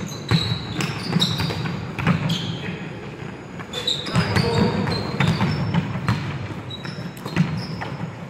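Basketball game on a wooden sports-hall floor: irregular thuds of the ball bouncing and players' feet, with short high squeaks of trainers on the boards.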